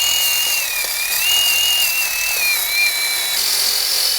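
Power-driven wire brush scrubbing corrosion off metal: a steady, loud, harsh hiss over a motor whine that wavers in pitch as the load changes.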